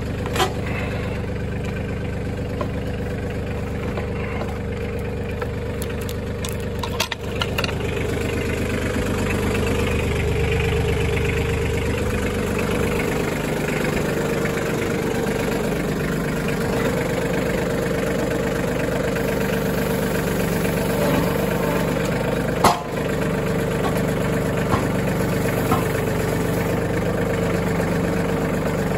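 Compact tractor engine running steadily while the tractor carries a log on its loader forks, a little louder from about eight seconds in, with a couple of sharp metal clanks about seven and twenty-three seconds in.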